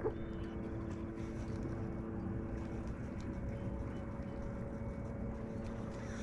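Electric bow-mount trolling motor running with a steady low hum, its pitch stepping up about halfway through.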